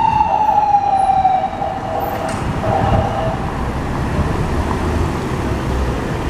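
Ambulance siren wailing in one long tone that slides slowly downward and fades out about three seconds in, over steady street traffic noise.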